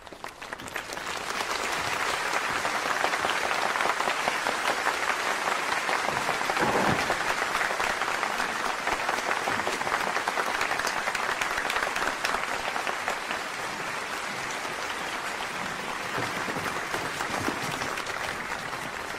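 A large audience applauding, the clapping building over the first couple of seconds, then holding steady and easing off slightly in the second half.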